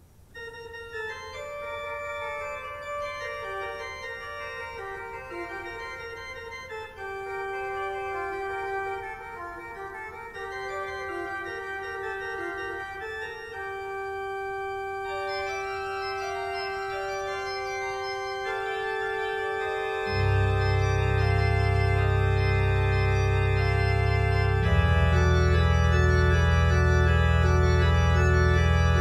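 Church organ beginning a piece softly with sustained chords just after the start. About two-thirds of the way through, deep bass notes enter and the sound grows louder.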